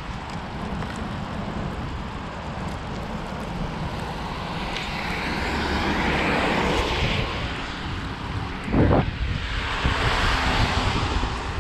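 Wind rumbling on the microphone during a bicycle ride, with a rushing noise that swells twice. There is a single thump about nine seconds in.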